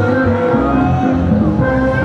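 Quickstep dance music playing continuously, with a steady bass line changing notes in quick succession.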